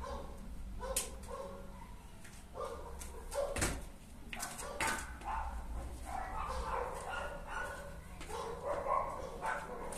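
A dog barking and yelping over and over, with a few sharp knocks of feet landing on the wooden floor during hopscotch jumps.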